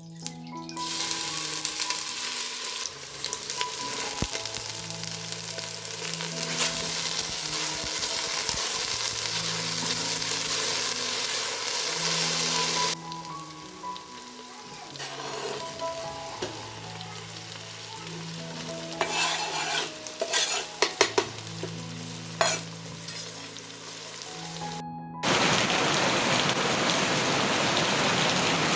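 Steady hiss of heavy rain falling, with soft sustained music notes underneath. The rain sound cuts abruptly twice: it softens about halfway through, with a few sharp drips or taps, then comes back louder near the end.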